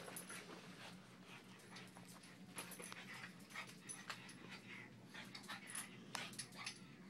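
Faint, short, irregular breaths and snuffles from a pug playing hard, jumping up at a sock-covered hand.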